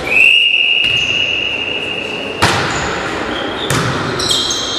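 Referee's whistle blown once for about two and a half seconds to signal the serve, then a volleyball struck hard on the serve and hit again about a second later, with short high shoe squeaks on the hall floor as the rally starts.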